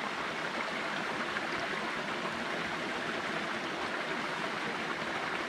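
Shallow creek running over flat rock ledges: steady flowing water.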